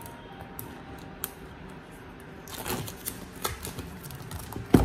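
Hands handling and turning over a cardboard product box: fingers tapping, scratching and rubbing its surface, quiet at first with a single click, then a quick run of clicks and rubs from about halfway. A sharp knock near the end is the loudest sound.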